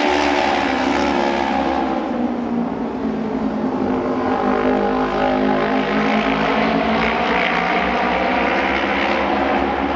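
Two Japanese auto race (asphalt oval) motorcycles' 600 cc parallel-twin engines running hard as they lap the track, the engine note rising and falling in pitch as they sweep through the turns and down the straight.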